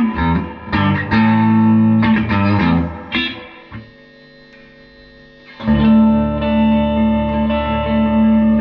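Electric guitar played through a 1964 Gibson GA77 RVT Vanguard valve amp, clean with a bright attack: a run of picked chords and notes fades out about four seconds in, then a chord is struck near six seconds and left to ring.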